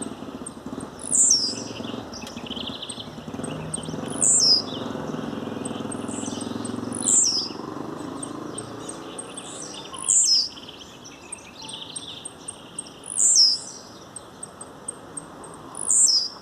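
Blue-black grassquit (tiziu) singing: six short, high phrases that fall in pitch, repeated about every three seconds.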